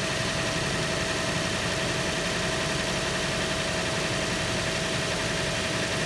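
Car engine idling steadily with a steady whine alongside, running so the alternator can be checked in a loaded charging test.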